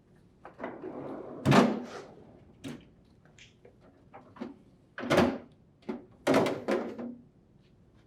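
Plastic freezer tray of a refrigerator pulled out on its slides, then the ice container lifted out: a short sliding rasp and a string of plastic clunks and knocks. The loudest clunk comes about a second and a half in, with two more about five and six and a half seconds in.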